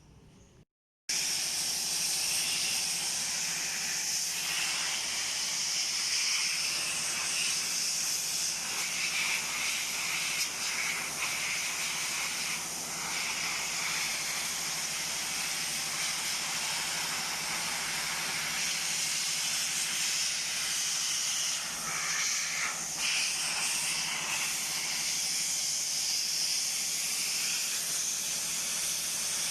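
Compressed air from an air compressor's blow gun hissing steadily as it blows dust out of the pleated paper filter element of a Maruti 800 dry-type air cleaner. The hiss starts about a second in and shifts slightly in tone now and then as the nozzle moves.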